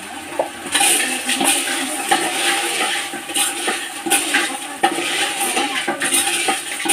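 A long metal spoon stirring and scraping food in a metal pot over a wood fire, with frequent clinks of metal on metal. A loud sizzling hiss from the hot pot starts under a second in.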